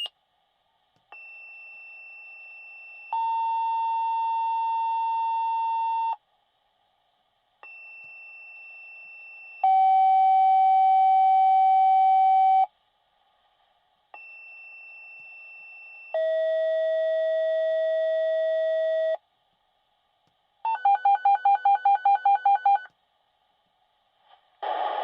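Fire department dispatch radio paging tones: three two-tone sequential pages, each a quieter, higher tone of about two seconds followed by a louder, lower tone of about three seconds, with a different pitch for each pair. Near the end comes a rapid run of beeps, about six a second for two seconds. These are the tones that set off the fire company's pagers.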